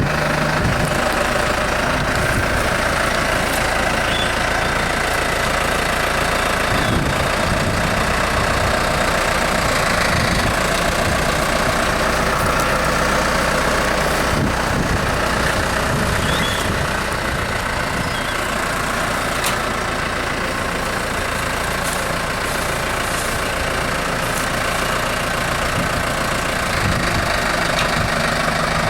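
A motor running steadily, a continuous mechanical drone at an even level throughout.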